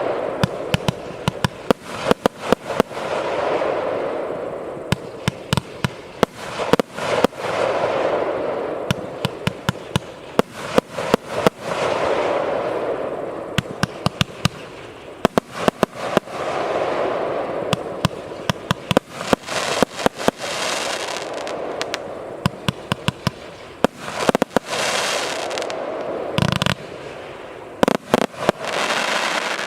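TKB274 'Za100lny' consumer firework battery firing. Clusters of sharp shots come about every four to five seconds, each followed by a few seconds of rushing, swelling noise as the effects burst.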